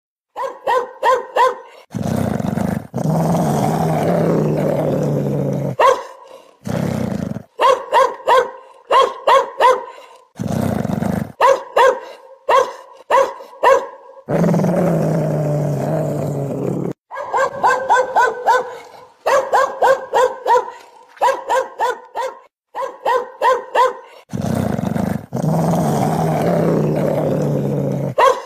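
Angry dog barking in quick runs of sharp barks, broken three times by a long, deep growl lasting three to four seconds.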